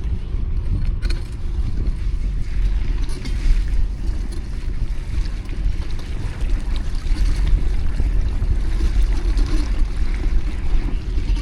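Steady low wind rumble buffeting the microphone of a camera riding on a moving bicycle, over a wash of street traffic noise.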